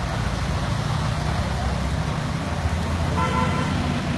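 Heavy rain pouring down and splashing on wet pavement over a steady low rumble. About three seconds in comes a short horn toot.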